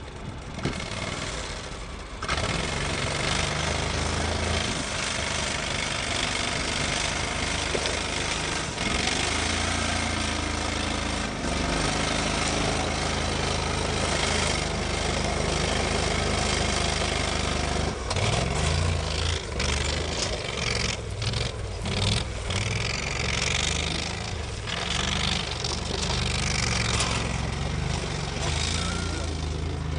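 Argo Avenger amphibious UTV's engine running hard as the tracked machine climbs a steep sandy slope, getting louder about two seconds in. In the second half the engine speed rises and falls unevenly as the throttle is worked.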